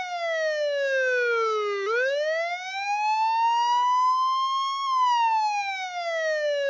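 Police siren in a slow wail: one tone with overtones that slides steadily down, swings back up from about two seconds in, peaks near five seconds and falls again.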